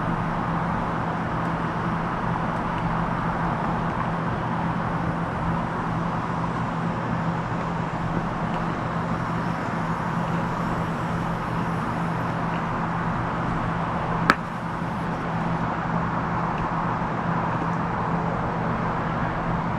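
Steady low hum with a rushing noise, unchanged throughout, and one sharp click about fourteen seconds in.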